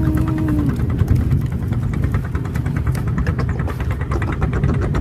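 Small boat engine running steadily at idle, with a fast, even beat.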